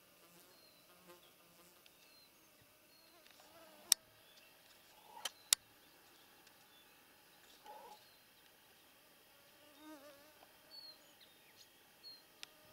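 Flying insects buzzing faintly around the microphone in wavering hums, with a few sharp clicks about four and five and a half seconds in and faint high chirps.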